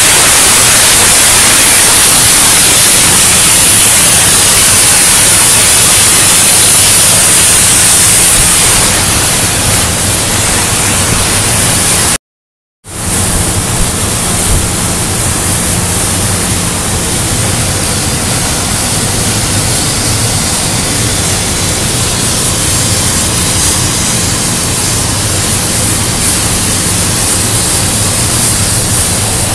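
CNC profile-cutting torch burning through steel plate: a loud, steady hiss. The sharpest part of the hiss eases about nine seconds in, the sound cuts out for half a second around twelve seconds, then a steady rushing hiss with a low hum carries on.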